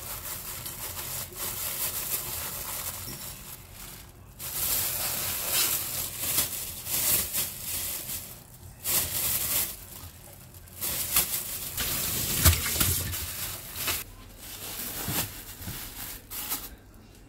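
Thin plastic bag crinkling and rustling in repeated bursts of a second or two, as grated carrot is scooped by hand from a steel bowl into it.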